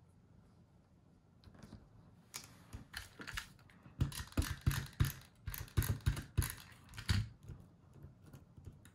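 Small paper letters handled and pressed down by hand onto cardstock: a quick, irregular run of light taps and clicks that starts a couple of seconds in and stops shortly before the end.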